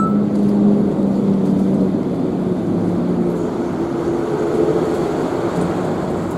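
City bus engine running as the bus pulls in and draws up close, its steady note easing slightly lower partway through.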